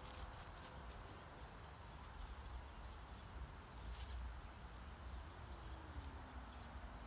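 Faint outdoor sound of dry fallen leaves rustling and crackling lightly, as small scattered crackles, over a low wind rumble on the microphone.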